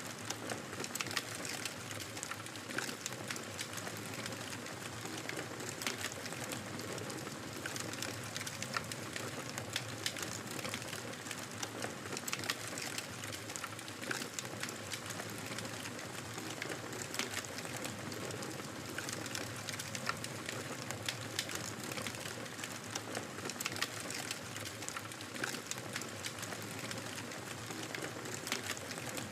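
Wood fire crackling steadily, with many small sharp pops and snaps over a constant soft hiss.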